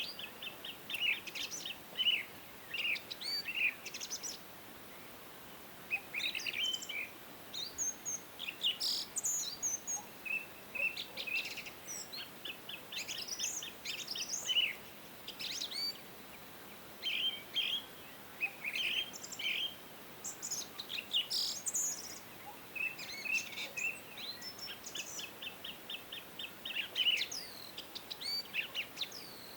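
Several songbirds chirping and singing, with short repeated chirps, quick trills and whistled notes overlapping throughout, over a faint steady background hiss.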